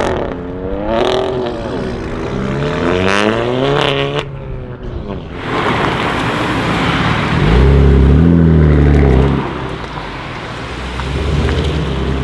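BMW M4 F82's twin-turbo straight-six with an Akrapovic titanium exhaust accelerating hard, its note climbing, dropping back at a shift and climbing again before fading out about four seconds in. Later a deep, loud engine rumble lasts about two seconds, and comes back more quietly near the end.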